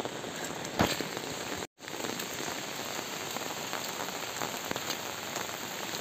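Steady rain falling, a dense patter of drops on the umbrellas overhead and the wet road, with one louder tap just under a second in. The sound cuts out for an instant at an edit a little under two seconds in, then the rain carries on.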